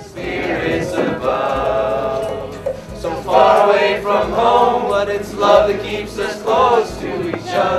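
A group of voices singing a song together, accompanied by a strummed acoustic guitar.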